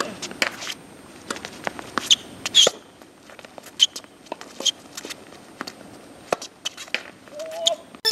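Tennis rally on a hard court: sharp racket strikes and ball bounces at irregular intervals, with brief high shoe squeaks as the players move. A short rising voice-like sound comes near the end.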